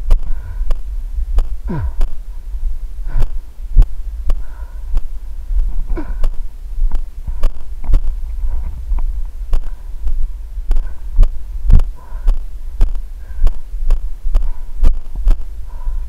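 A moving body-worn camera picking up its wearer's footsteps on a dirt ridge as sharp knocks, about two a second, over a constant low rumble of handling and wind on the microphone.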